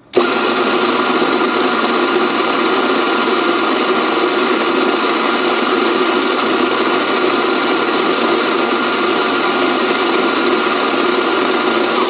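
Rancilio Rocky flat-burr coffee grinder running steadily with a constant whine. It starts abruptly and cuts off near the end, and measures about 85 decibels.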